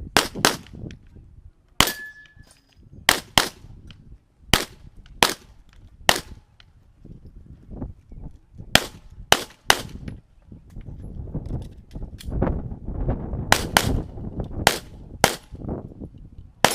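Semi-automatic service pistol firing about sixteen shots, mostly as quick double-taps, with short pauses between the pairs as the shooter moves from target to target.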